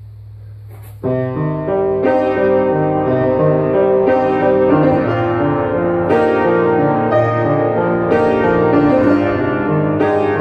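Beckwith spinet organ being played: held chords over a stepping bass line, changing about once a second. A low steady hum sounds alone for the first second before the playing starts.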